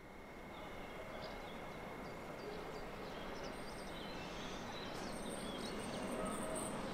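A train approaching from far off along the line: a low rumble that slowly grows louder, with a few bird chirps over it.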